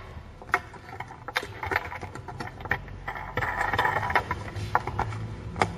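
Plastic parts of a shower-cabin roof panel and its fan unit being handled: scattered sharp clicks and knocks, with stretches of scraping and rustling between them.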